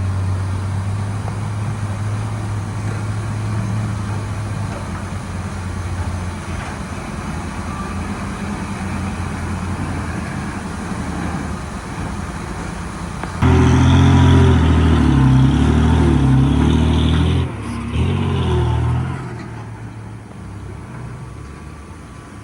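Heavy diesel earthmoving equipment running with a steady low hum that slowly fades. About two-thirds of the way in, a much louder sound of stepped, shifting tones starts abruptly, breaks off briefly, and stops a few seconds later.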